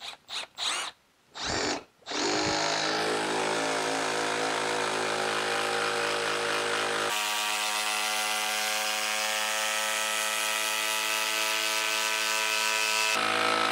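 Milwaukee M12 Fuel Surge hydraulic impact driver on speed 3, driving a long screw into dense wood. A few short bursts come first, then it runs steadily and evenly, its tone changing abruptly about halfway through.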